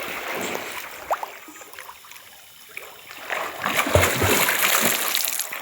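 Water splashing as people swim in a pond, quieter for a moment in the middle, then louder again through the second half.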